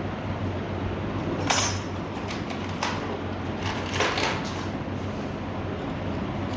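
A steady low hum with a few short knocks, about a second and a half, three and four seconds in.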